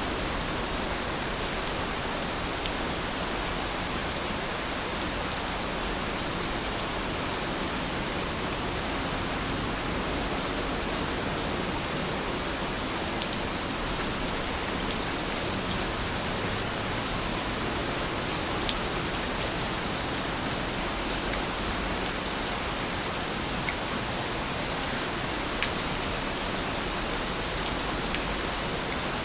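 Steady rain falling, an even unbroken hiss, with a few sharper single drips ticking now and then.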